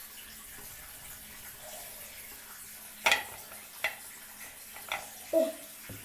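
Small objects handled at a bathroom sink as toothpaste is put on a toothbrush: three sharp clicks about a second apart in the second half, then a short falling squeak.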